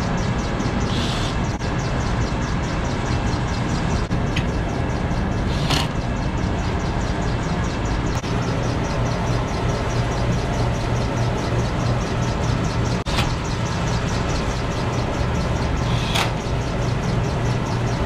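Rooftop HVAC units running steadily: a constant low electrical hum under a wash of machine noise, with a few short clicks from work on a unit's panel and wiring.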